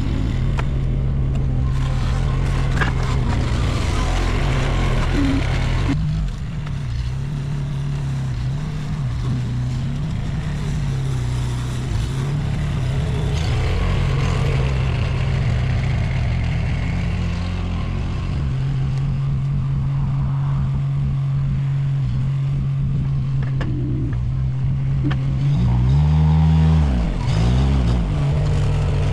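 Small skid-steer loader's engine running steadily while the machine drives, with some clattering. Near the end the engine pitch swings down and back up and gets louder.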